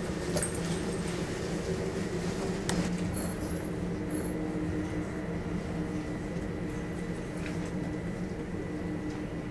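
Steady drone of a taxiing Boeing 747-400's jet engines at idle across an airport apron, with a thin high whine over it. A couple of brief clicks and two short high beeps come about three to four seconds in.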